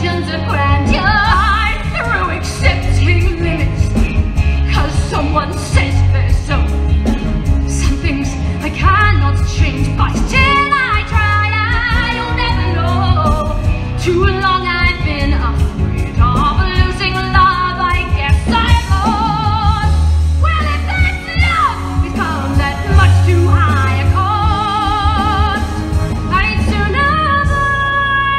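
Musical theatre number: a singer's voice with wide vibrato over a full pit orchestra with a heavy, sustained bass.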